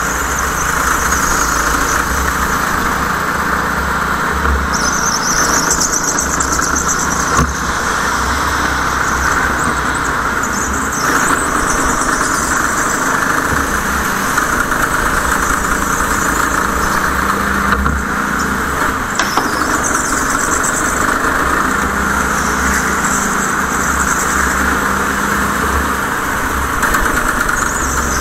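Go-kart engine running steadily through a race, with a high-pitched tyre squeal coming and going several times.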